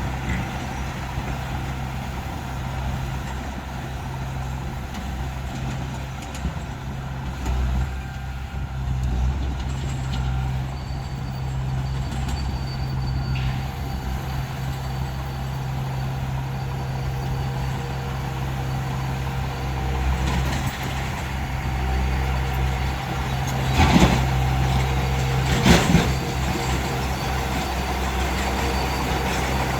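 Diesel engine of heavy earthmoving machinery running steadily with a low drone. Two loud knocks come about two seconds apart near the end.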